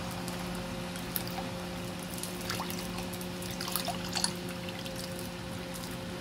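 Cold chocolate milk poured in a thin trickle into bubbling coconut milk and sugar syrup in a pan, with a few small pops of bursting bubbles. A steady low hum lies underneath.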